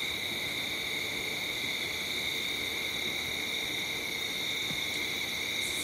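Steady chorus of night insects: an unbroken high trilling at two pitches that holds level throughout.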